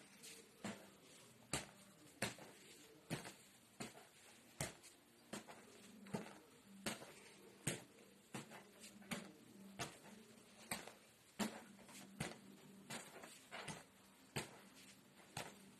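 A rubber play ball bounced on the floor again and again in a steady rhythm, a sharp thud about every three quarters of a second.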